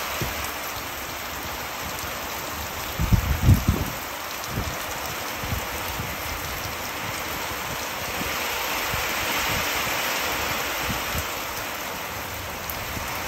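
Heavy monsoon rain pouring onto a flooded concrete rooftop: a steady hiss of splashing that swells a little past the middle. A few brief low thumps come about three seconds in.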